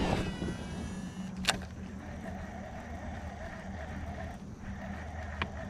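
Small boat motor humming steadily at low speed, broken by a sharp click about a second and a half in and another near the end.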